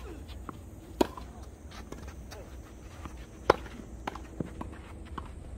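Tennis doubles rally: sharp pops of rackets striking the ball, the loudest about a second in and again past the middle, with lighter knocks between them.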